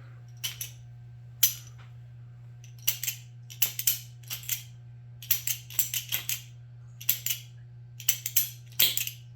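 Sharp metallic clicks and clinks in irregular clusters, over a steady low hum.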